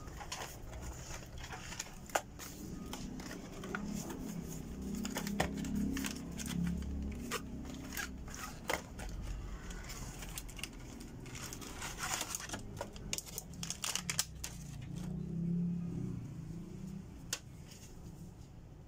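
Small cardboard product boxes and plastic packaging being handled and opened by hand: irregular taps, clicks and crinkling, busiest in two stretches.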